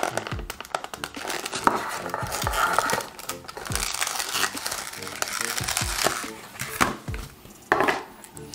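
Cardboard CPU packaging and a clear plastic clamshell tray rustling and crinkling as they are handled, with scattered sharp clicks and scrapes. Light background music underneath.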